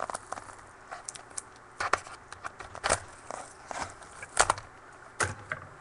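Trading-card pack being opened and its cards handled: irregular clicks, crackles and scrapes of the wrapper and card stock, with a few sharper snaps.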